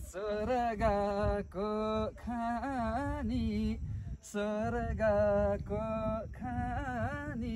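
A man singing unaccompanied in phrases of held, slightly wavering notes, with short breaks between the phrases.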